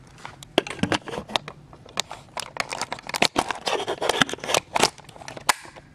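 Handling noise from a handheld camera being carried along: irregular sharp clicks, taps and rustles, densest from about two seconds in.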